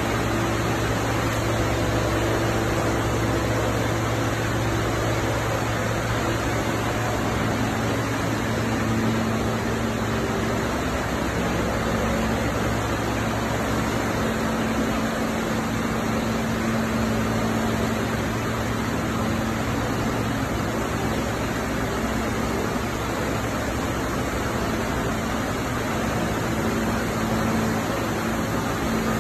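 Machinery of a PET bottle recycling line running: a steady, even industrial din with a constant low hum from the electric motors, conveyor and crusher, and no separate knocks or strikes.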